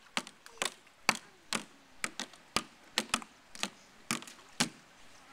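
A small child banging a plastic toy against the rim of a plastic kiddie pool: a steady run of sharp knocks, about two a second, that stops shortly before the end.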